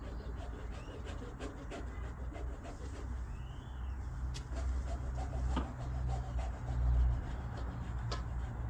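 Hand handling of parts: light clicks and rubbing of pieces being fitted together, over a low rumble, with one short squeak about three and a half seconds in.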